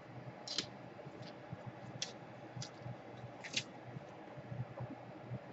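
A handful of faint, light clicks and short scrapes, about five spread over several seconds, from small things being handled on a workbench.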